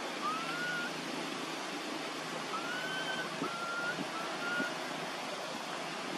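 Baby macaque giving four short, thin coo calls, each rising slightly then levelling off, the contact call of an infant separated from its mother. Behind them a steady outdoor rushing noise.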